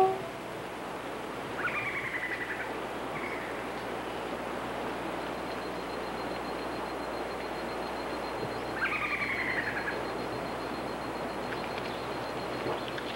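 Cloud-forest ambience: a steady hiss with a wild animal calling, a pulsed, falling call about a second long, heard about 1.5 s in, briefly near 3 s, and again about 9 s in. A faint high steady whine sits in the middle stretch.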